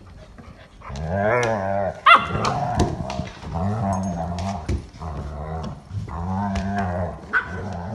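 Airedale terriers play-growling at each other: several low drawn-out growls of about a second each, with a short high yelp about two seconds in.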